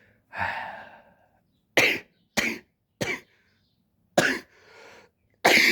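A man coughing in a fit of short, harsh coughs, about five in a row, after a long breathy hack near the start; he says he is sick.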